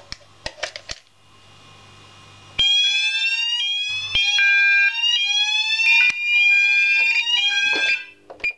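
Several electronic fire alarm sounders going off together: overlapping rising sweep tones mixed with steady tones, starting suddenly about two and a half seconds in and cutting off after about five seconds. A few sharp clicks come before and after.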